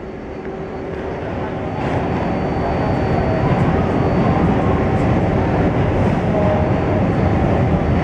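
Interior running noise of an R142A subway car: the rumble of wheels and traction motors builds over the first two or three seconds as the train gathers speed, then runs on steadily.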